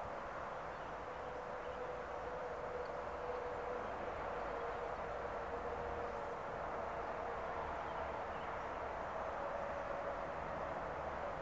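Distant road traffic: a steady wash of tyre and engine noise with a faint held tone that rises slightly near the end.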